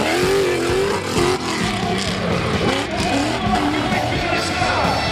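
Off-road competition jeep engine revving hard, its pitch rising and falling again and again as the throttle is worked.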